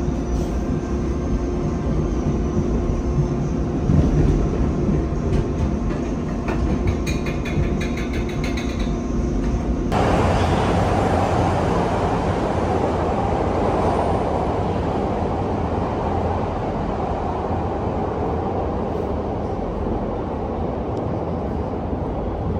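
Rapid-transit train heard from inside the car as it runs along: a steady motor hum with a run of rail clicks. About ten seconds in, the sound changes suddenly to a louder, even rushing noise that carries on.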